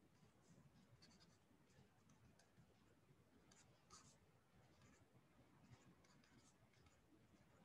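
Near silence with faint, scattered scratches and taps of a stylus writing on a tablet screen.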